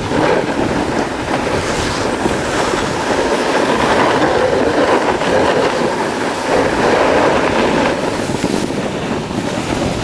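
Snowboard sliding and scraping over snow while riding downhill, a continuous loud rush mixed with wind buffeting the microphone.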